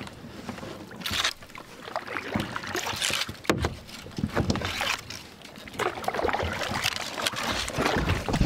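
Kayak paddle strokes splashing and scraping as the kayak is forced through thick brush, with irregular swishes and knocks of branches against the paddle and hull.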